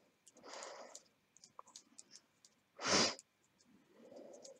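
Knitting needles ticking faintly as stitches are worked, under soft breathing, with one louder breath, a sigh, about three seconds in.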